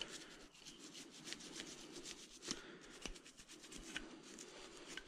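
Old toothbrush scrubbing the dirty outside of a Yamaha two-stroke golf cart carburetor: faint, quick back-and-forth brush strokes working off hardened gunk.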